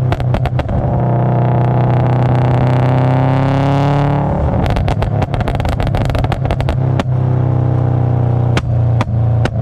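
Modified turbocharged Subaru Impreza WRX flat-four with a 3-inch exhaust, held at steady high revs, with rapid pops and crackles from the exhaust over the engine note. The popping thins out for a few seconds early on while the revs creep up slightly, then comes back in a dense string around halfway through.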